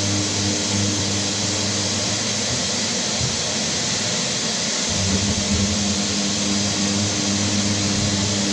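Mirka electric sander running on a painted door panel, a steady hum over a hiss of air and abrasive. The hum wavers and thins for a couple of seconds in the middle, then settles steady again.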